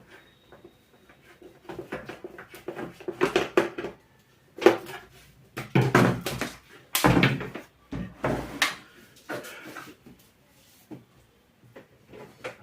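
Irregular knocks and clatter of hard objects being handled, with the loudest knocks between about four and nine seconds in.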